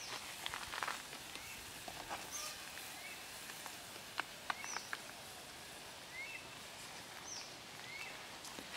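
Birds calling in short whistled chirps, some rising and some falling, repeated every second or two over a steady outdoor hiss, with a few sharp clicks in between.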